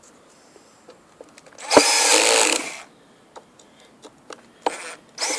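Cordless screwdriver driving screws back in: one whirring run of about a second, then two short bursts near the end, with small clicks between.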